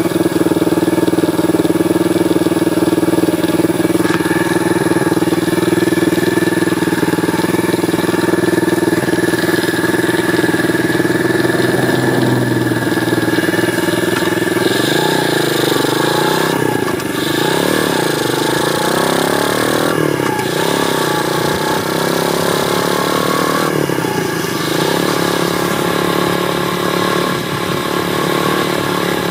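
Apollo 125cc pit bike's single-cylinder four-stroke engine idling steadily, then revving up and pulling away, its pitch rising and dropping several times through the gear changes in the second half.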